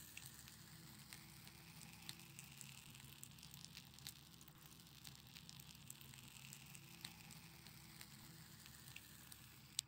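Campfire embers crackling: a faint steady hiss with scattered sharp pops, one of the loudest just before the end.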